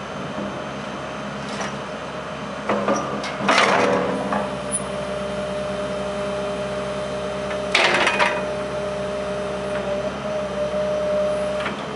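Komatsu PC210LC hydraulic excavator's diesel engine running steadily while the boom and bucket move, with a hydraulic whine coming in about three and a half seconds in. Loud metallic clanks break in about three and a half and eight seconds in.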